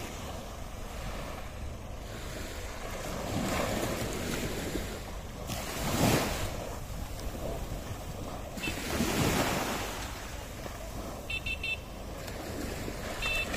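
Small waves breaking and washing up the beach, surging three times a few seconds apart, with wind buffeting the microphone. A few brief high chirps come near the end.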